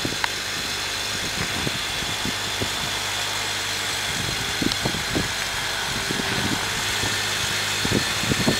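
Honda Element's engine idling as the car creeps slowly in reverse, a steady low hum, with scattered small crackles from the tyres rolling over icy pavement.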